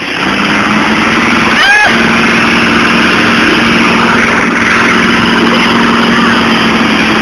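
Two V8 pickups, a 1989 Chevy 350 and a 1979 Ford 400, pulling against each other on a tow strap. The engines climb at the start and then hold at high, steady revs under load, while the tires spin in the dirt.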